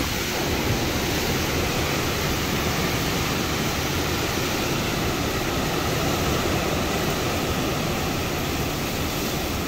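Hurricane wind with driving rain: a loud, steady rushing noise.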